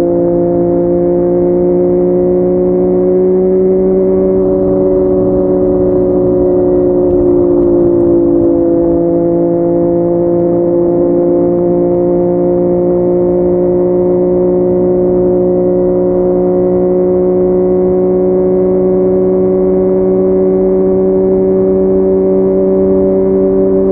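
Yamaha MT-09's inline-three engine through a Yoshimura R55 slip-on exhaust, running at nearly steady revs while cruising, its pitch drifting only slightly up and down.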